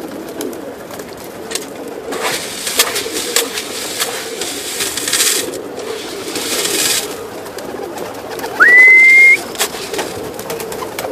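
Domestic pigeons cooing in a loft. Two stretches of rustling noise and scattered light clicks come in the middle, and near the end a single loud whistle rises quickly, then holds steady for under a second.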